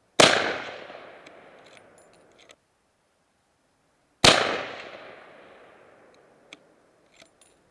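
Two shots from a Savage 111 bolt-action rifle in .300 Winchester Magnum, about four seconds apart, each a sharp loud crack followed by an echo that dies away over about two seconds. A few faint clicks come between and after the shots.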